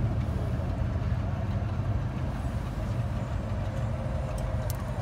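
Steady low mechanical drone with a fainter higher hum, and a few faint light clicks near the end.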